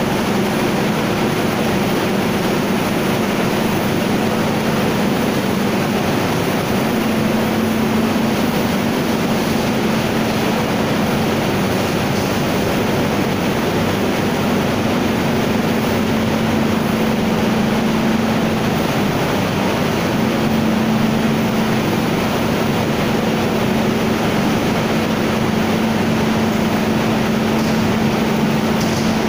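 Steady machinery drone of a running flour mill: an even, loud rushing noise with a constant low hum underneath.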